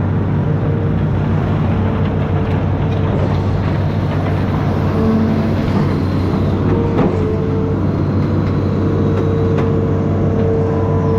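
Amphibious excavator's diesel engine running steadily, with a faint whine that comes and goes and a single sharp knock about seven seconds in.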